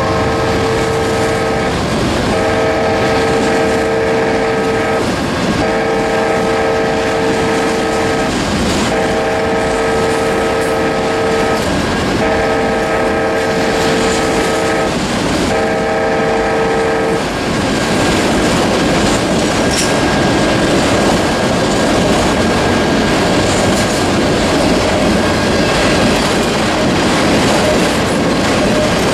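Railroad crossing wayside horn sounding six evenly spaced blasts of about two and a half seconds each, stopping about seventeen seconds in. Under it, a freight train of autorack cars clatters steadily past on the rails while the crossing bell rings.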